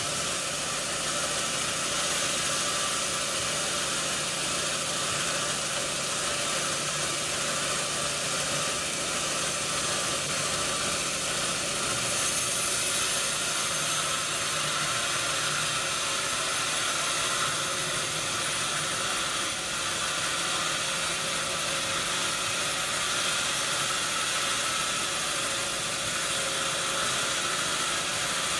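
Sawmill machinery running steadily: an even mechanical hiss with a constant hum under it, no pauses or impacts.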